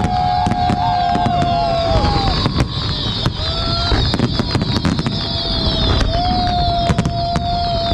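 Fireworks display going off: many sharp bangs and crackling bursts over a continuous low rumble. A long steady held tone sounds over it in the first two seconds and again from about six seconds in.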